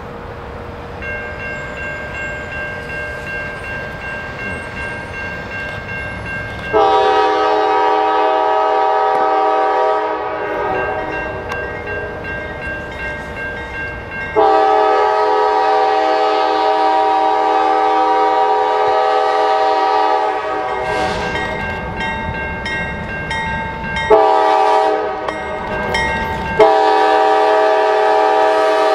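Norfolk Southern diesel locomotive's multi-chime air horn sounding the grade-crossing signal: two long blasts, a short one, and a final long one, over the low rumble of the approaching freight train.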